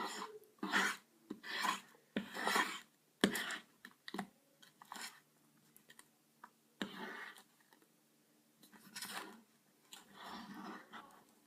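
A utensil scraping and stirring slime ingredients on a plate, in a run of short, irregular strokes, with a sharp click about three seconds in.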